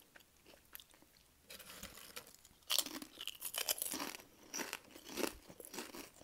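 Thin, flat Lay's potato chips being chewed close to the microphone: crisp crunching with many sharp cracks, quiet at first and getting busy a little under three seconds in.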